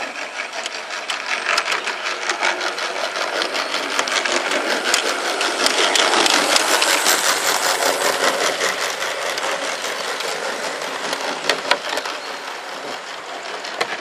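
Model trains running past close by: wheels clicking rapidly over the rail joints, with the motor and rolling stock rattling. It grows louder to a peak about six to eight seconds in, then eases off, with a few sharper clicks near the end.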